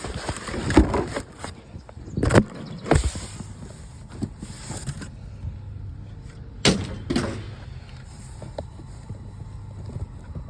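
Scrap metal being handled: about five sharp clanks and knocks, two close together near the start and two more a little after halfway, over a low steady rumble like a vehicle engine running.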